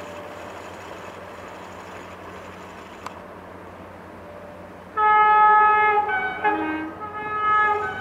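Multi-tone air horn of a CFR LDE2100 (EGM621) diesel-electric locomotive, sounding a loud chord about five seconds in that shifts between notes, breaks off briefly and sounds again near the end. Before it, a steady low hum.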